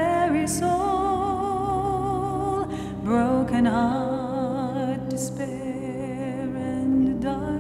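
Slow song with a single voice holding long, wavering notes over a soft, steady instrumental accompaniment.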